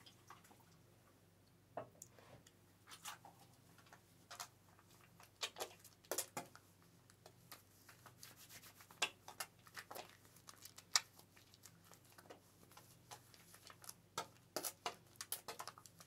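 Hands working wet hair during a shampoo at a wash basin, close to the microphone: quiet, irregular soft squishes, taps and rubbing.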